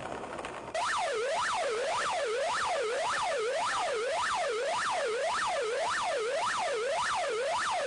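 Electronic siren sweeping its pitch up and down about twice a second in an even, steady yelp. It cuts in abruptly about a second in.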